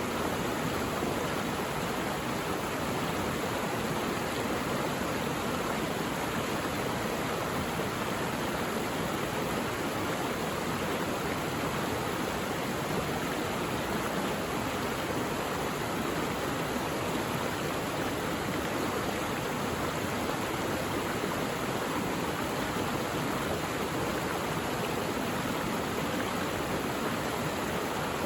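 Mountain stream water rushing steadily over rocks, with no change in level.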